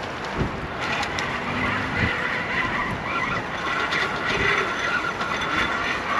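Fishing reel being wound in: a whirring, whining tone that starts about a second in, wavers with the cranking and stops abruptly at the end.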